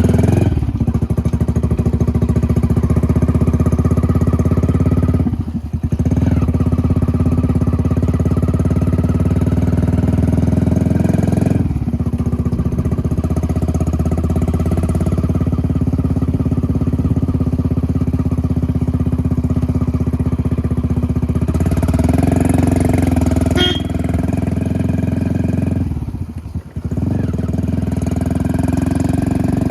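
Hero HF Deluxe motorcycle's single-cylinder four-stroke engine running steadily through an aftermarket RX100-style silencer. The sound drops away briefly three times.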